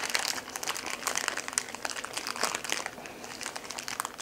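Clear plastic packaging crinkling and rustling as it is pulled open and worked off a CB antenna's parts, an irregular run of quick crackles.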